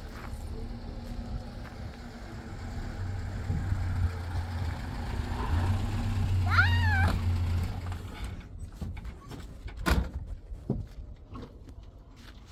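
A single short, high animal cry that rises and falls, about halfway through, over a low steady rumble. A sharp knock follows near the end.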